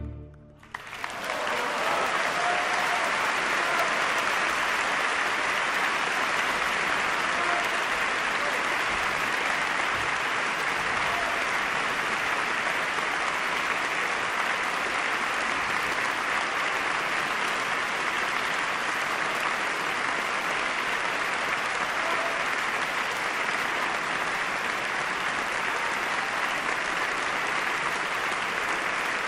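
Concert audience applauding steadily, the clapping starting about a second in as the last chord of the string ensemble dies away.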